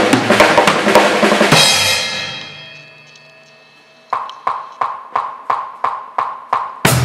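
Drum kit playing with a backing track, ending on cymbals that ring out and fade over about two seconds. Then a steady count-in of short clicks, about three a second, and the kit and backing track start again just before the end.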